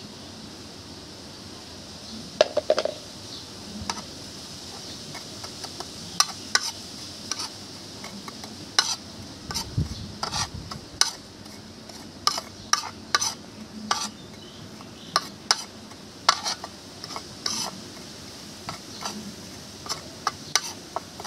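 Metal spoon scraping and clinking against a ceramic plate while stirring dry chili flakes, salt and ground spice together. The irregular sharp scrapes and taps start about two seconds in and come roughly one or two a second.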